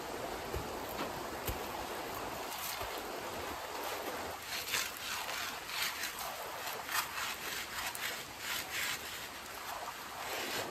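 Steady rushing of a creek under a burning campfire, with sharp crackles; from about four seconds in, rustling and scraping as dry branches are handled and dragged across the ground, the clicks coming thicker.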